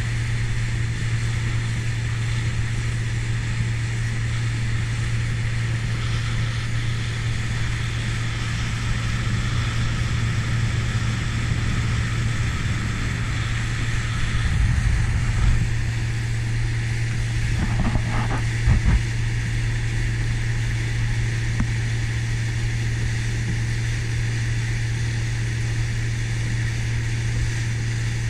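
Outboard motor of a small motorboat running steadily at speed, a constant low drone under the rush of wind and water. A couple of knocks about two-thirds of the way through.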